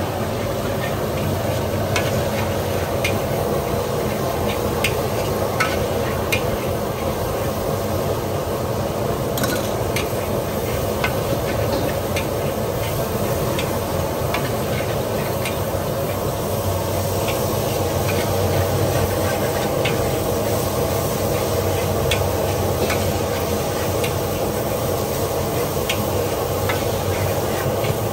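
Metal spatula scraping and clanking against a wok as noodles are stir-fried, over a steady sizzle; the sharp clinks of the spatula come about once a second.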